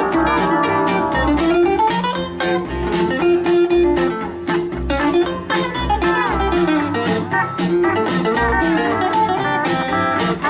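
Honky-tonk country band playing an instrumental break: lead guitar with bending notes over upright bass and a steady beat.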